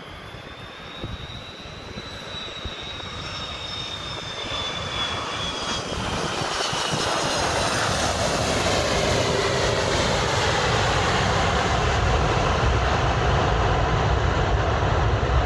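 Airbus A330-200 airliner landing, its twin turbofan engines' high whine sliding down in pitch as it approaches and passes, growing steadily louder. After touchdown, about halfway through, a deep, heavy rumble builds and stays loud: the engines spooling up for reverse thrust on the rollout.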